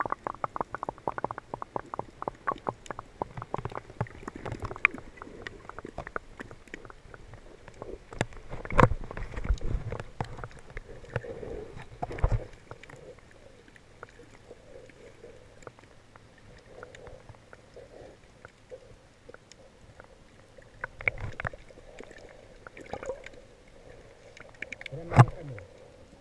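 Muffled underwater sound heard through a camera's waterproof housing: water sloshing and gurgling, with rapid clicks over the first few seconds and a few dull thumps, the loudest near the end.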